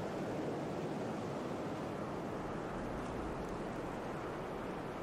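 Steady rushing sea-and-wind ambience, even throughout with no distinct wave breaks.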